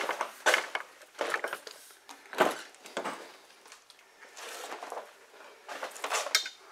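Handling noise: a string of irregular short knocks, scuffs and rustles, as of hands and gear moving against the truck's interior trim and floor, with a slightly longer rustle past the middle and a cluster of knocks near the end.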